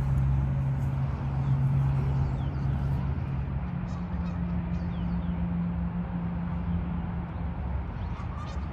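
Canada geese calling with short honks, a louder one near the end, over a steady low hum.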